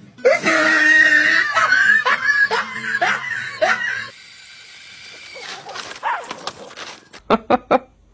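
A person shrieking and laughing for about three and a half seconds, then much quieter, with a few quick sharp sounds just before the end.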